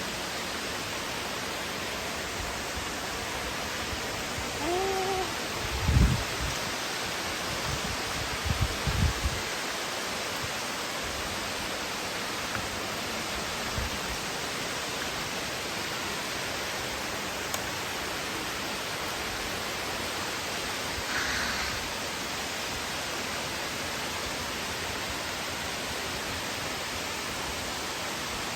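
Steady rushing of falling water from a waterfall, an even hiss that does not change. A few low thumps come about six seconds in and again around nine seconds, and a brief pitched sound comes just before the first thump.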